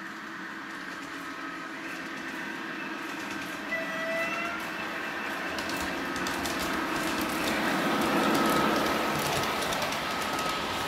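Large-scale model of a DR class 132 'Ludmilla' diesel locomotive running on model track, its motor and gears humming and its wheels clicking over the rail joints. The sound grows louder as the locomotive approaches and is loudest as it passes close by, about eight seconds in. A brief tone sounds about four seconds in.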